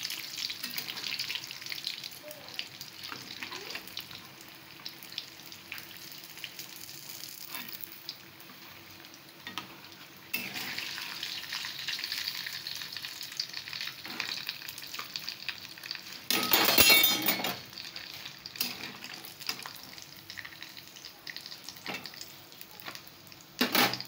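Semolina-coated paneer cutlets deep-frying in hot oil in a kadhai, with a steady sizzle that grows louder about ten seconds in. A metal spatula scrapes and knocks against the pan as the browned cutlets are lifted out. About two-thirds of the way through there is a brief, loud clatter.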